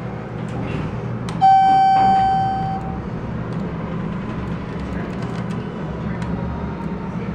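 KONE elevator cab: a click, then a single loud electronic beep lasting about a second and a half, over a steady low hum. A few light clicks follow as the car operating panel's buttons are pressed.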